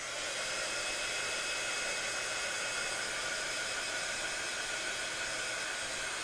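Handheld heat gun switched on and blowing hot air steadily: an even fan hiss with a faint high whine, drying freshly applied acrylic paint.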